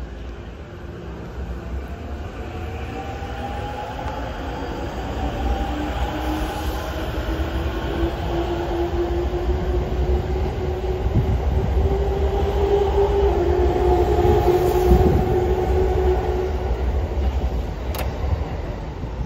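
A JR Musashino Line electric commuter train pulling out and accelerating past, its motor whine rising in pitch over a growing rumble of wheels on rail. It is loudest about 15 s in and eases as the last car goes by, with a sharp click about 18 s in.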